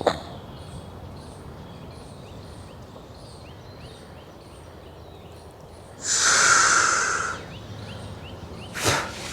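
A person's loud breath, lasting about a second and a half, some six seconds in, drawn after holding the breath out in a yoga breath-retention exercise (bahya kumbhak). A shorter breath follows near the end.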